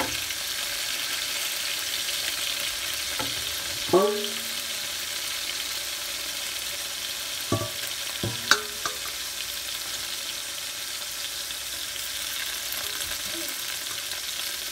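Sliced onions and chicken fat frying in oil in a cast-iron skillet, with a steady sizzle. A few sharp clinks sound over it, about four seconds in and again around eight seconds in.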